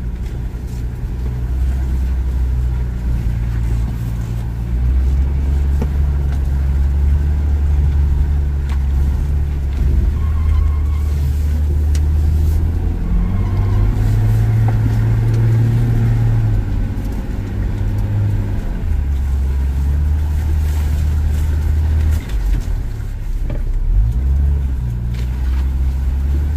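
Engine of an off-road 4x4 heard from inside the cab, labouring at low revs as it crawls along a rough, rutted track. The revs step up and down every few seconds, with a few light knocks.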